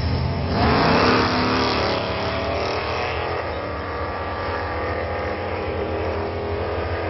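Two V8 drag cars, a 1963 Dodge 330 with a 440 cubic-inch big-block and a 426 Hemi Plymouth Road Runner, launching at full throttle about half a second in. The engine note rises in pitch as they accelerate away down the strip and fades with distance.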